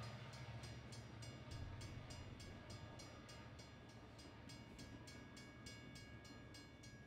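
Near silence with a faint steady low rumble and thin steady high whining tones: a distant train in a rail yard.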